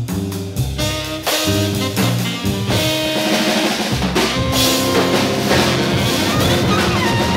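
Jazz combo recording: a drum kit with cymbals and bass drum plays busily over a walking double bass, growing louder. A tenor saxophone line enters near the end.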